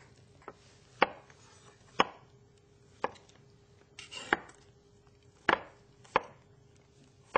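Chef's knives slicing king oyster mushrooms into large chunks, each cut ending in a sharp knock on the cutting board: about eight separate strokes, unevenly spaced at roughly one a second.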